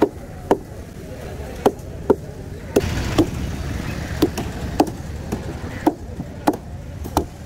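Heavy hook-tipped fish knife chopping through a fish into steaks on a wooden table. About a dozen sharp chops come at uneven intervals, roughly half a second to a second apart.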